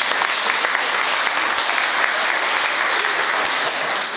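Audience applauding: many hands clapping, steady and loud.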